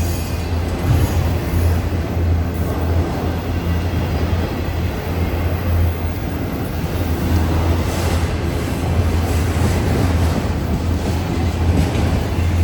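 Freight train rolling past: a steady low rumble and hum with the clatter of wheels on rail.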